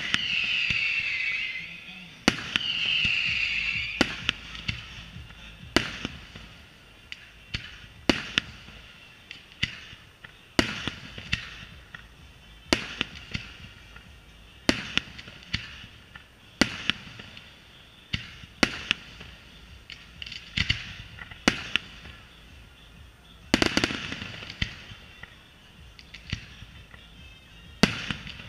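Aerial fireworks shells bursting in a display: sharp bangs about every two seconds, each trailing off in a rumble. A bright hiss rides over the first few bursts.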